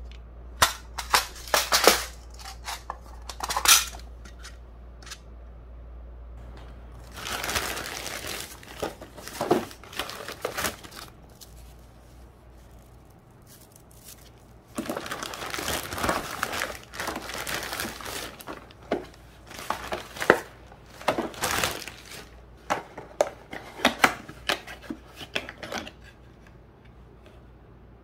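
A thin plastic bag crinkling and rustling as items are unpacked from it, in two longer stretches. Sharp clicks and taps from a small plastic case and cardboard boxes being handled come in the first few seconds and again near the end.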